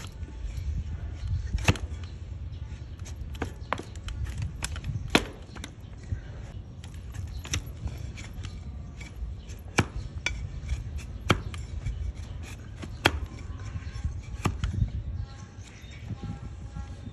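A flat hoof-trimming blade pushed by hand through a donkey's hard, overgrown hoof wall, giving irregular sharp cracks roughly every second or two as slivers of hoof break away, over a steady low rumble.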